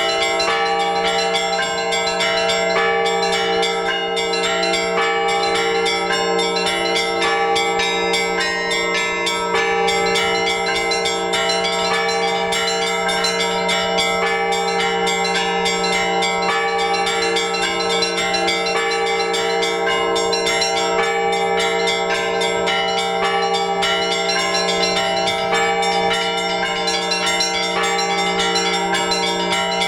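Orthodox church bells rung in a continuous peal by a bell ringer: many small bells struck in quick, dense succession over the steady ring of larger bells.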